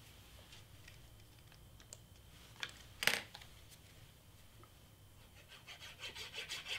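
Cardstock being handled: one sharp paper swish about three seconds in as a cut cardstock piece is picked up, then near the end a fast run of scratchy rubbing as a precision-tip glue bottle is drawn across the cardstock.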